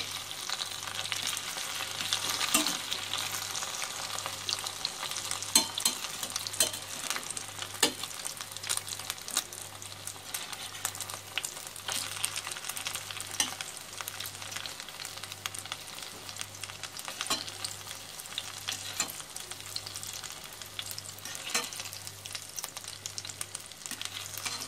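Oil sizzling in a stainless steel pot as zucchini fritters fry, with sharp clicks of metal tongs against the pot every second or two as the fritters are lifted out.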